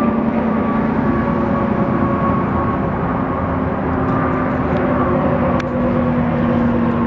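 Approaching Norfolk Southern freight train: a steady diesel-locomotive drone with rumble, several held tones over a noisy haze.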